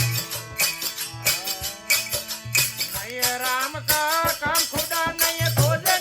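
Rajasthani folk devotional bhajan music: a steady beat of rattling percussion strikes, about three every two seconds, over held instrumental tones. About halfway in, a singing voice comes in with a bending melody.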